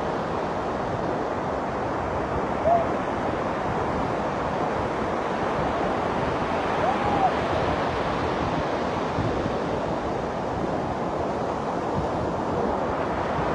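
Sea surf washing onto a beach: a steady, even rushing noise.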